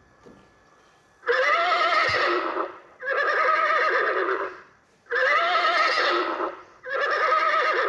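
Recorded horse neighing: four whinnies of about a second and a half each, in quick succession, the first starting about a second in.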